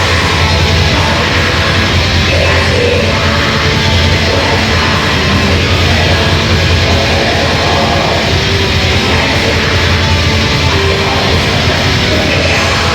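Heavy metal band playing live: loud, dense, unbroken music.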